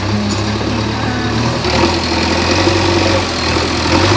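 JCB backhoe loader's diesel engine running steadily; about a second and a half in its note changes and grows fuller as it works harder.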